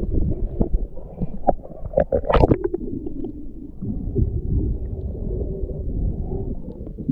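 Muffled underwater rumble of water moving around a submerged camera, with scattered clicks and bubbly gurgles and one sharper splashing burst about two and a half seconds in.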